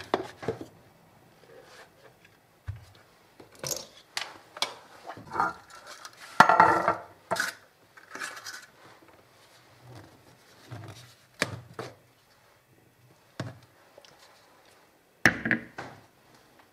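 Clicks, knocks and rustles of kitchen handling: a plastic blender jug taken off its motor base and paper liners set into a metal muffin tin. The loudest is a longer clattering rustle about six to seven seconds in, with a sharp knock near the end.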